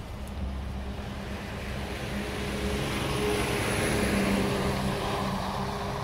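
Steady engine drone of a passing vehicle, growing louder to a peak about four seconds in and then easing slightly.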